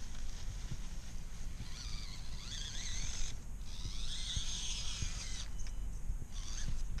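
Mini RC rock crawler's electric motor and gears whining in two spurts of throttle, the second cutting off suddenly about five seconds in, with its tyres grinding through wet sand and shallow water.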